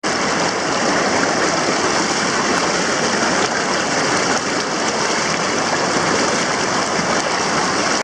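Fast-flowing river water rushing, a loud, steady rush.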